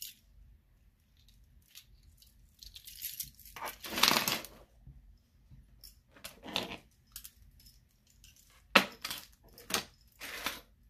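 Metal charms on beaded bracelets jangling and clinking as jewelry and tools are handled on a table, in short scattered clatters, the longest about four seconds in and a sharp click near the end.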